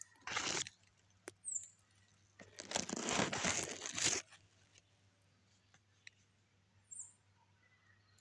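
Rustling and crunching of cucumber leaves, vines and dry straw mulch brushed close to the microphone. It comes in two bursts: a short one just after the start and a longer, louder one of about a second and a half, about two and a half seconds in.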